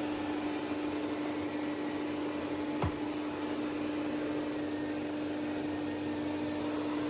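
Suction motor of an ECOVACS DEEBOT T50 Max Pro robot vacuum system running steadily: a rush of air with a steady hum under it, and a single click about three seconds in.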